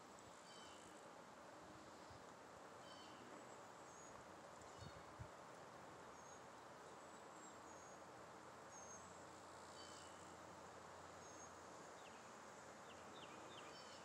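Faint songbirds chirping: short high notes every second or so, and a quick run of sliding notes near the end, over a steady hiss of outdoor ambience. Two soft low thumps about five seconds in.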